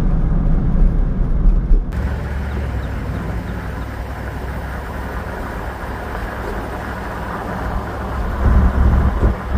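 A low rumble cuts off sharply about two seconds in. After it, a car on the move gives a steady rushing road and wind noise, with a few low buffets near the end.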